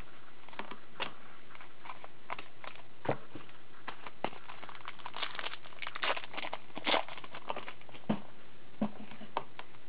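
Trading cards being shuffled and flipped through by hand: a quick run of light rustles, slides and taps of card stock, with a few sharper snaps.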